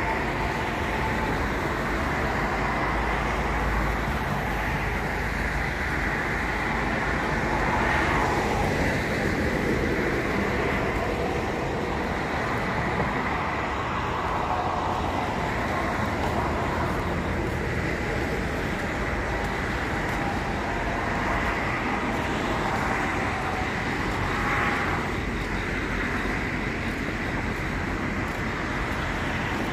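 Road traffic running steadily, with swells as cars pass about 8 and 25 seconds in.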